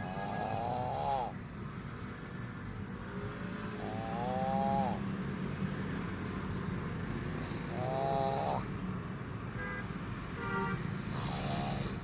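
A sleeping person snoring heavily, four snores about four seconds apart, each a nasal tone that rises and then falls, over a steady low hum of traffic.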